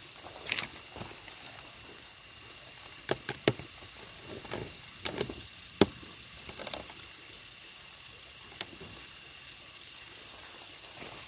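Campfire crackling: irregular sharp pops and snaps over a steady faint hiss, the loudest snaps between about three and six seconds in.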